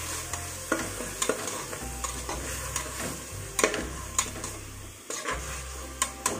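A slotted steel spatula stirs onion and ground green masala paste frying in oil in an aluminium pressure cooker. A steady sizzle runs under irregular sharp scrapes and taps of metal on the pot.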